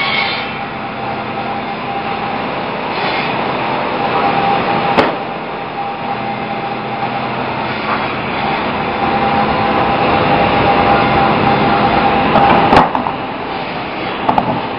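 Sawmill band saw headrig running as it mills an ipe hardwood log into boards: a steady whine over dense machine noise, with a sharp knock about five seconds in and another near the end.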